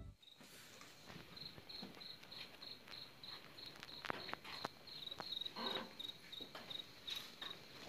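A cricket chirping in short, evenly spaced pulses, about three a second, starting about a second and a half in, with a few faint clicks.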